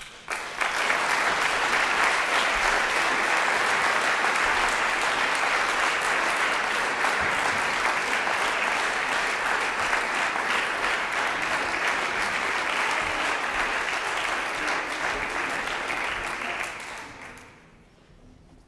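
Audience applauding. It begins abruptly, holds steady for about sixteen seconds, then dies away near the end.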